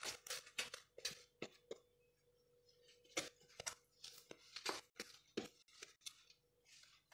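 Thin warqa pastry sheets crinkling and rustling in short, irregular crackles as hands tuck their edges under around a round metal baking pan.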